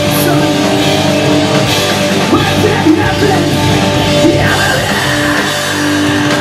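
Live hardcore punk rock band playing loud: distorted electric guitars holding chords over bass guitar and a drum kit, with the singer shouting into the microphone.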